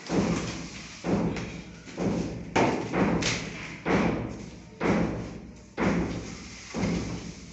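A stone slab being tapped down into its mortar bed: about nine dull thumps in a row, roughly one a second.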